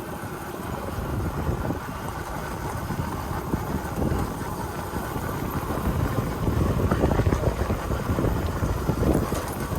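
Small Hero Honda motorcycle engine running while riding on a rough off-road track, with a steady low rumble and wind noise on the microphone.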